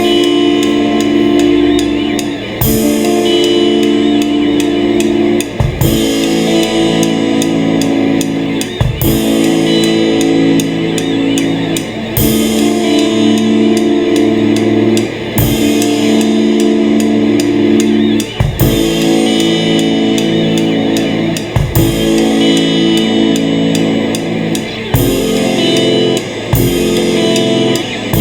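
Instrumental rock music: held guitar chords over a drum kit, with a heavy drum-and-cymbal hit about every three seconds.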